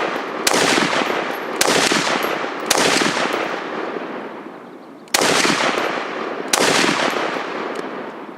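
Five single rifle shots from an IMI Tavor TAR-21. The first three come about a second apart; after a pause of about two and a half seconds come two more, a second and a half apart. Each crack is followed by a long echo that dies away over a second or two.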